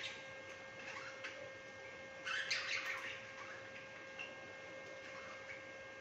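Budgerigars chirping and chattering in short scattered bursts, the busiest flurry a little over two seconds in, over a steady hum.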